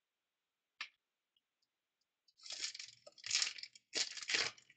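Trading cards handled by hand: a light tick about a second in, then three quick brushing swishes in the second half as the cards slide over one another.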